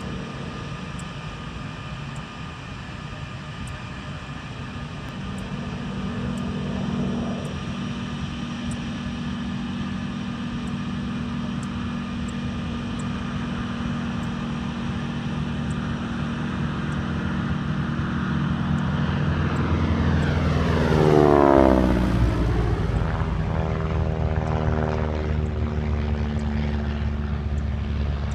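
North American T-6 Texan and another propeller warbird making a low flyby, their radial engines droning steadily and growing louder. About two-thirds of the way through they pass close by, and the engine note drops sharply in pitch, then drones on lower as they fly away.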